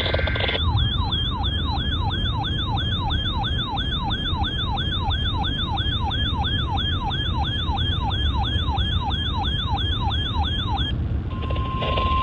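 Electronic yelp-style siren tone: a falling sweep repeated about two and a half times a second, which stops abruptly near the end, followed by a short steady beep.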